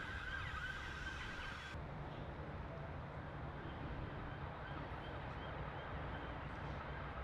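Steady low rumble of outdoor background noise, with a thin, steady high-pitched tone that cuts off suddenly about two seconds in.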